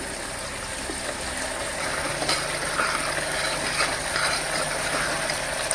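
A ladle stirring and scraping in a metal pot of thick simmering dal, over a steady frying hiss from tomato puree cooking in ghee; a low steady hum comes in about two seconds in.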